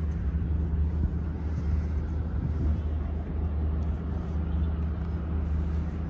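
A steady low engine hum that holds even throughout, over faint outdoor background noise.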